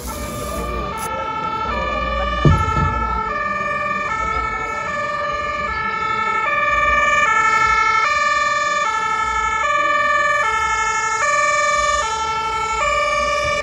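German two-tone emergency-vehicle siren (Martinshorn) sounding loudly, alternating between a high and a low note about every three-quarters of a second, then cutting off suddenly. There is a single sharp thump about two and a half seconds in.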